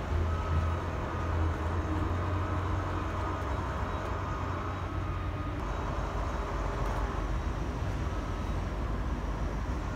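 A 1/16-scale RC Panzer IV tank running with a steady low rumble. A faint high whine sits over it through the first half.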